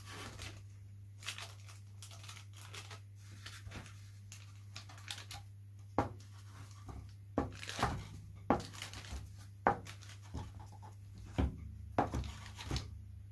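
Oracover heat-shrink film crackling and crinkling as a covering iron is slid and pressed over it on a balsa wing, in scattered sharp crackles that come more often in the second half. A steady low hum runs underneath.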